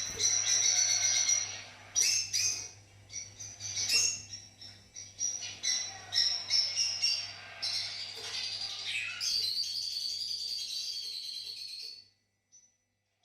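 Fischer's lovebirds chirping and chattering: a string of short high calls, then a continuous chatter from about eight seconds in that cuts off suddenly about a second before the end.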